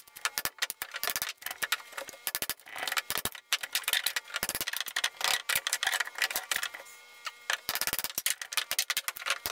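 A small sledgehammer striking a steel pry bar over and over in quick, sharp metallic knocks, driving the bar in to knock wooden T1-11 siding loose from the wall framing.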